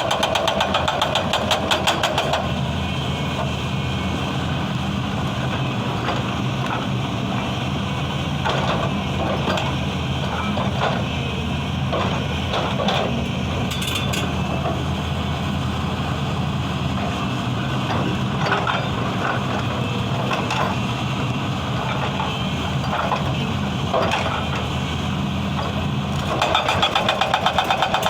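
Excavator's diesel engine running with a hydraulic breaker hammering rapidly at the start. The hammering stops about two seconds in and starts again near the end. In between the engine runs steadily, with a few scattered knocks.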